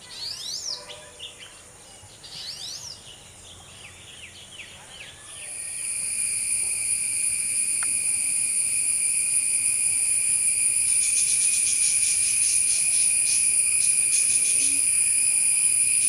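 Oriental magpie robin singing short, varied whistled phrases, two of them in the first few seconds. At about five seconds a loud, steady, high insect drone sets in and carries on. A stretch of rapid pulsing rides on it for about four seconds near the end.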